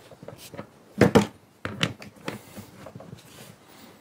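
Clicks and knocks of hand tools tightening a terminal nut on a battery isolator switch with a torque wrench, the loudest pair about a second in.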